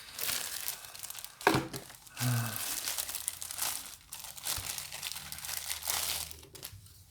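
Plastic packaging crinkling and tearing as a box is opened by hand, with a sharp knock about a second and a half in.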